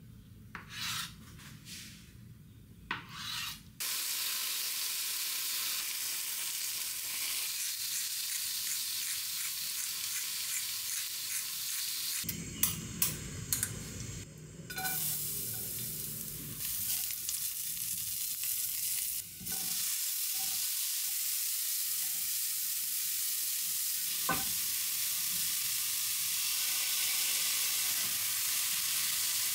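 A few knife cuts on a cutting board, then asparagus and mushrooms sizzling steadily in oil in a frying pan as they are stir-fried with a spatula, with some sharp clicks partway through.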